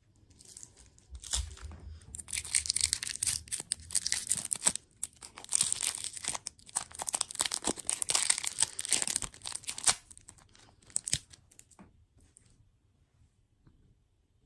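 Plastic food packaging being torn open and crinkled: a dense run of crackling and rustling for about eight seconds, then a few scattered crinkles before it stops.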